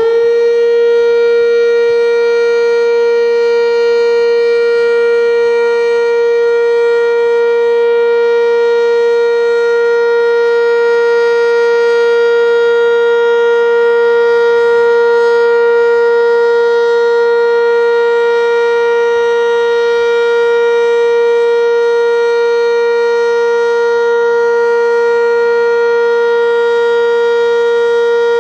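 Sentry 10V outdoor warning siren sounding a loud, steady, unbroken tone at full pitch, having just finished winding up. It is the siren's scheduled test.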